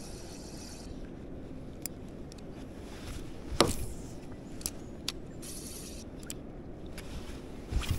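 Spinning reel being worked from a kayak: a fine whirr of winding that stops about a second in, then a single sharp swish of a cast a little before halfway. A few light clicks and brief bursts of winding follow.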